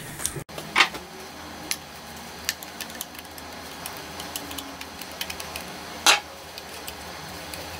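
Small scattered ticks and clicks of a screwdriver turning the steel takedown screw out of the metal plate under a .22 bolt-action rifle's wooden stock, with a louder sharp click about six seconds in.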